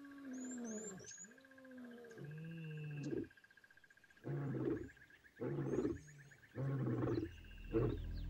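Lion roaring: long low calls falling in pitch in the first seconds, building to four shorter, louder roars about a second apart in the second half. A steady high insect drone and a few bird chirps lie underneath.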